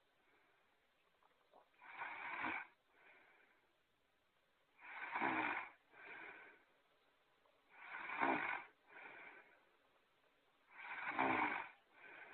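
Snoring sound effect repeating: four loud snores about three seconds apart, each followed by a shorter, softer breath.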